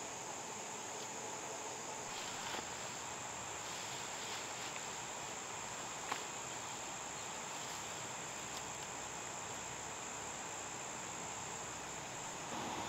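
Evening chorus of crickets and other insects, a steady high-pitched trill with a lower steady hum beneath it. A few faint rustles and one sharp click about six seconds in.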